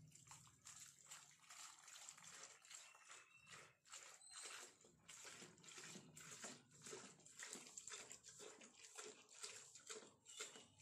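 Faint pouring of liquid from a plastic jerrycan into a plastic bucket: the stream splashes into the liquid below and glugs unevenly as air gulps back through the can's spout.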